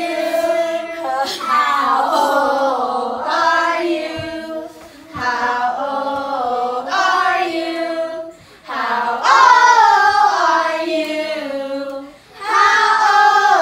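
A group of voices, children among them, singing a birthday song together in four long, held phrases with brief breaks between them.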